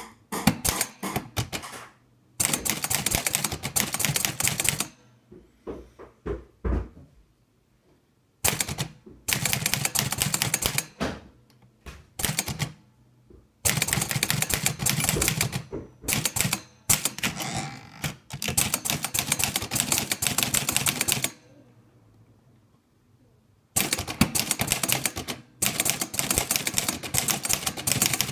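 Olivetti Lettera 32 manual portable typewriter being typed on: rapid type-bar strikes in bursts of a few seconds, broken by short pauses. The machine has been taken apart, cleaned and oiled.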